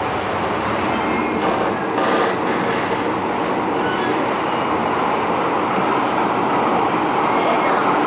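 MTR M-Train electric multiple unit running at speed on the Tsuen Wan Line, heard from inside the car: a steady rumble of wheels on rail and running gear, growing a little louder toward the end, with a few brief faint high-pitched squeals.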